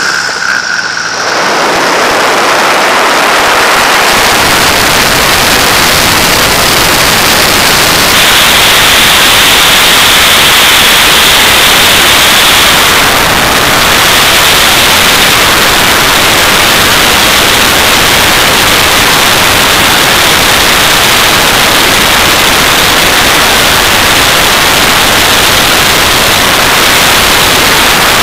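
Loud wind rush over the microphone of a camera mounted outside a Pitts biplane in flight: a steady, even hiss that buries the engine sound. A steady high tone joins the hiss about eight seconds in.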